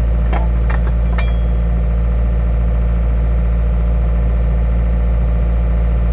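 Takeuchi TL130 track loader's diesel engine running steadily at idle, with a few light clicks about half a second to a second in.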